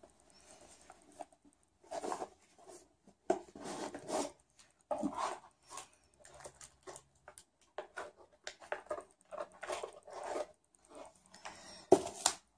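Rustling and crinkling of trading-card sleeves being pulled out of their pack, in short irregular bursts with small clicks, loudest near the end.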